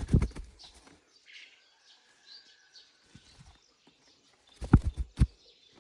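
Two short clusters of thumps and knocks, one in the first second and another near the end, with faint bird chirps in the quiet between them.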